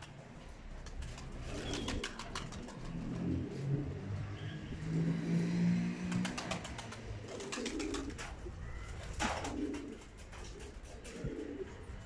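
Domestic pigeons cooing in low, rolling calls, loudest about halfway through. Sharp wing flaps break in several times as birds take off and land.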